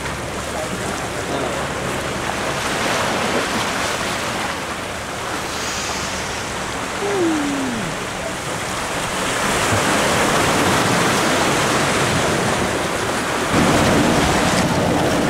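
Surf washing and breaking over jetty rocks with wind on the microphone, the wash growing louder about two-thirds of the way through. A brief falling tone sounds just after the middle.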